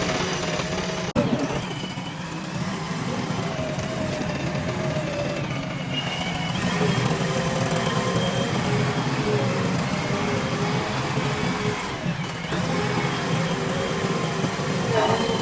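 JCB 3DX backhoe loader's diesel engine running steadily under digging load, with a wavering whine from the hydraulics. There is a brief sharp break about a second in.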